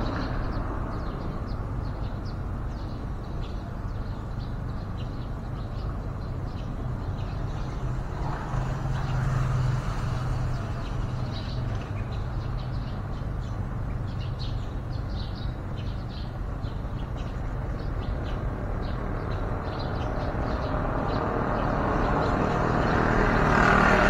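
Steady low rumble of outdoor road traffic that swells about nine seconds in and again near the end, with many short, high bird chirps scattered through it.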